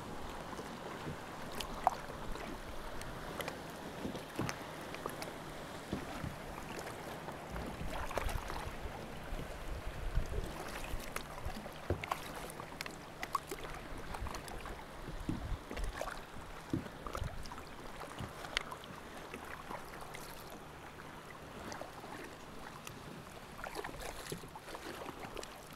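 Kayak paddle strokes and choppy sea water splashing and lapping around the kayak, with many small irregular splashes and drips. A low rumble of wind on the microphone underneath.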